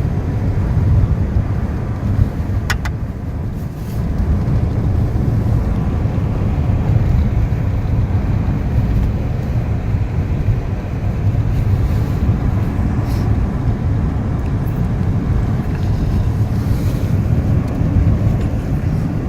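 Steady low rumble of road and wind noise inside a moving car, with a single sharp click a little under three seconds in.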